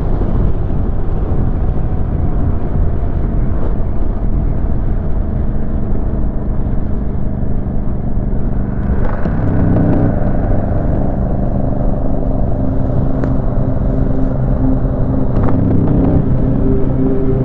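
Yamaha motorcycle engine droning while riding, under a heavy low wind rumble on the microphone. Its steady engine tones come up more strongly about nine seconds in and again near the end.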